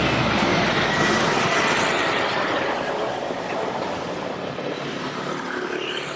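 Steady vehicle rumble and road noise that slowly fades out over the last few seconds.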